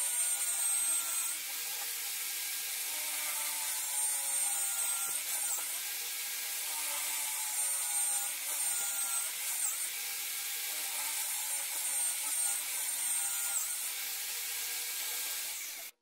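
Corded electric drill, mounted in a homemade wooden drill-press stand, boring into a block of wood. The motor's whine dips in pitch every few seconds as the bit is fed down and loads in the wood, then cuts off suddenly near the end.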